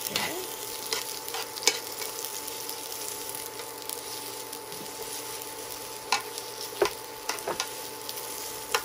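Sliced onion sizzling in hot oil in a nonstick pan while a spoon stirs it, clicking and scraping against the pan now and then: a few knocks in the first two seconds and a cluster from about six to eight seconds in.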